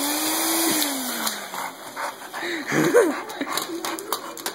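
Dog tussling with a vacuum cleaner. A drawn-out tone rises and then slowly sinks over about a second and a half under a hiss. A short rising whine comes about three seconds in, followed by a run of clicks and knocks.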